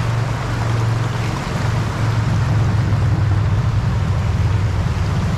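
Steady rush of flowing creek water under a loud, fluttering low rumble.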